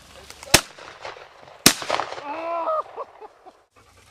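Two shotgun shots about a second apart, fired at flushing bobwhite quail, followed by a short pitched cry.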